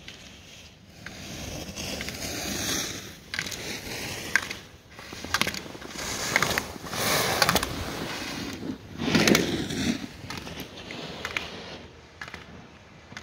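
Slalom skis carving on hard-packed snow: a series of scraping hisses that swell and fade with each turn as the skier passes close by, with a few sharp knocks as the gate poles are struck.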